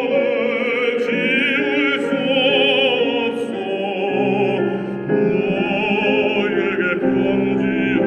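Baritone singing a Korean art song (gagok) in operatic style with a wide vibrato, over sustained instrumental accompaniment.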